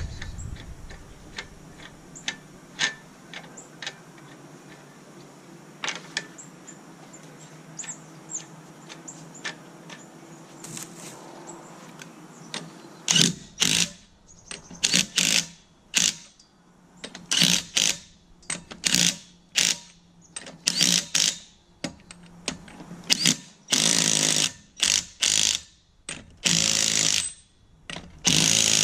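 A power tool run in a string of short, loud bursts, starting about 13 seconds in and going on at irregular intervals. Before that there are only faint scattered clicks.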